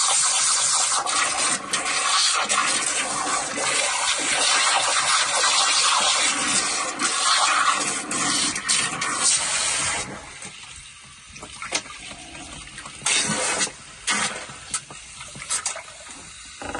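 Garden hose spray nozzle jetting water into a boat's bilge: a steady hiss and splash of water on the bottom and frames. About ten seconds in the spray drops away and then comes back in short bursts.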